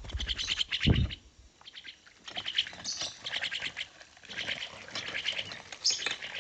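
Crested mynas bathing in a shallow water dish: rapid fluttering splashes, with bird calls among them. There is a dull thump about a second in.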